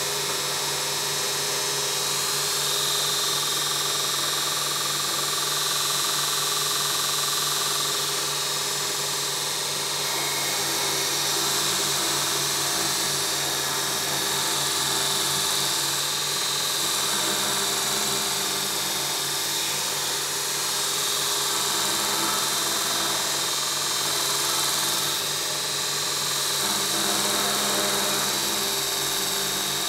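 2x42 belt grinder running with its abrasive belt grinding metal: a steady motor hum under a continuous high hiss from the belt.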